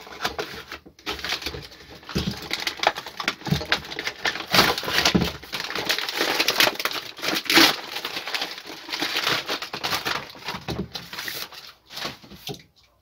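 A paper-and-plastic parcel envelope and its old magazine-page padding being torn open and crumpled by hand: a long run of uneven rustling and ripping that dies away about a second before the end.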